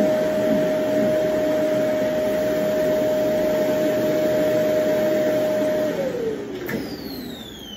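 Vacuum cleaner motor running steadily with a high-pitched whine, then switched off about six seconds in, its whine falling as the motor spins down. A click comes near the end.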